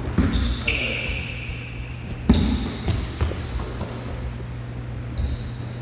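A basketball bouncing on a hardwood gym floor, a few separate thuds with the loudest about two seconds in, and sneakers squeaking in short high squeals as players move on the court.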